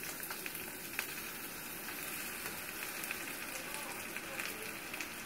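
Beaten eggs and milk sizzling in a hot frying pan: a steady frying hiss with a few faint crackles.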